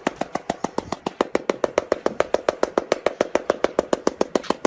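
A fast, even run of sharp percussive clicks, about eight a second, each with a short hollow ring.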